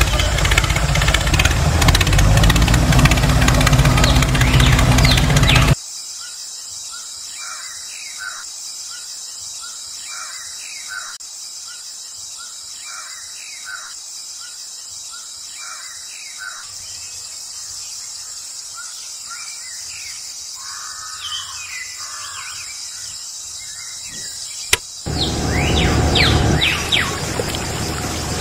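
Small birds chirping again and again, short separate calls over a steady high hiss. A loud, steady engine-like running noise fills the first few seconds and cuts off abruptly, then comes back just as abruptly a few seconds before the end.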